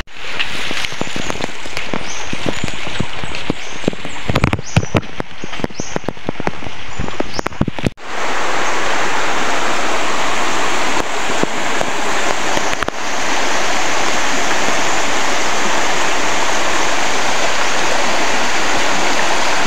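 Shallow stream running over rocks: choppy, irregular splashing and gurgling for the first several seconds, then an even, steady rush from about eight seconds in.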